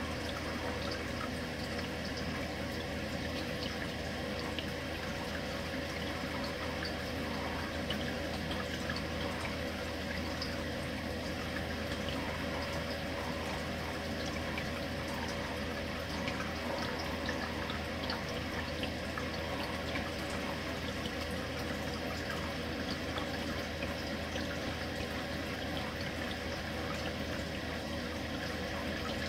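Aquarium water circulating: steady trickling and splashing with a low steady hum beneath.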